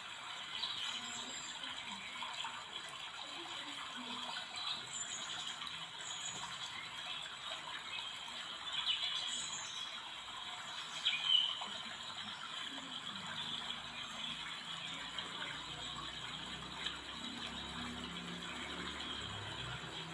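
Faint clicking and rustling of glass seed beads, needle and thread as a beaded band is hand-stitched onto cloth, with a couple of slightly louder clicks about nine and eleven seconds in.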